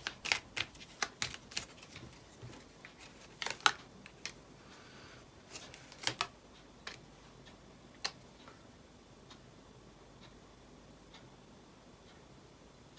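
Fortune-telling cards being handled and laid down on a table: a quick run of sharp clicks and taps, then a few more about six and eight seconds in, then only faint ticks.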